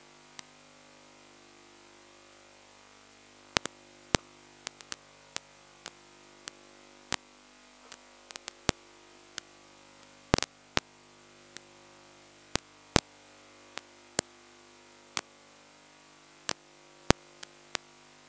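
Steady electrical hum with many sharp clicks at irregular intervals, roughly one or two a second. The clicks are absent for about three seconds near the start, and the loudest is a short cluster about ten seconds in.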